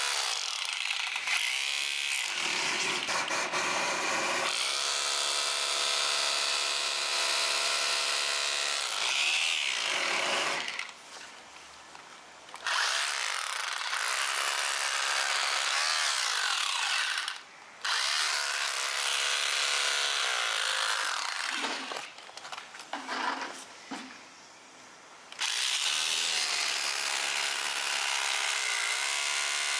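A small electric motor running with a steady whine, wavering in pitch at times, switched off and on again: it stops for about two seconds around ten seconds in, for a moment near eighteen seconds, and for a few seconds shortly before the end.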